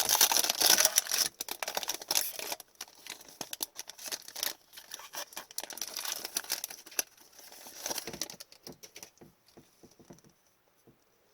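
Crinkling and tearing of a foil trading-card pack wrapper being opened, densest in the first couple of seconds, then lighter rustling and clicks of handling that fade out about nine seconds in.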